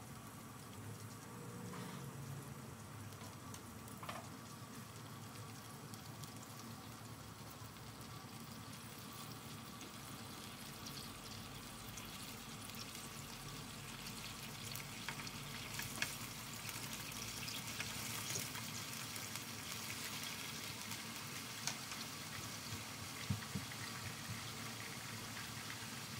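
Anchovy broth with chili oil heating in a wok on a gas stove and coming to a boil, with a soft bubbling and sizzling hiss. The bubbling grows a little louder and busier about halfway through, with a few sharp ticks.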